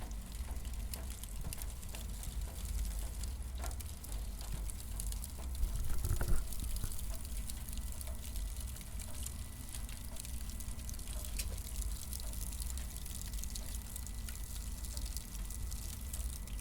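Cardboard burning: a steady hiss of flames with many small crackles and a low rumble underneath, growing louder for a moment about six seconds in.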